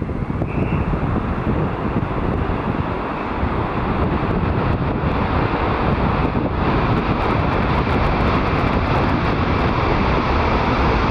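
Boeing 747 jet engines, a loud steady rush that builds over the first few seconds and then holds, with wind buffeting the microphone.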